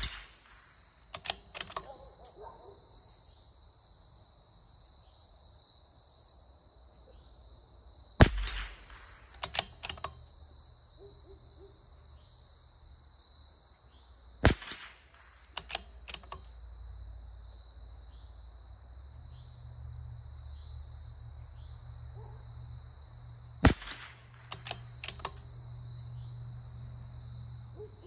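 Three .22 LR shots from a bolt-action CZ 457 Varmint rimfire rifle, several seconds apart, each sharp crack followed a second or so later by a few light clicks as the bolt is worked for the next round. A steady high insect drone runs underneath.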